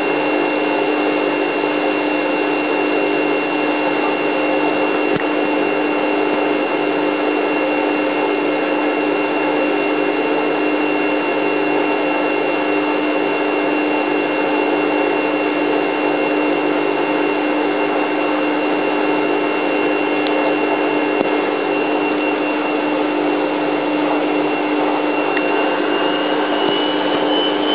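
Hoover H130E front-loading washing machine holding a steady interim spin speed, the drum and motor running with a constant whine. Near the end the high whine starts to rise as the drum begins to speed up.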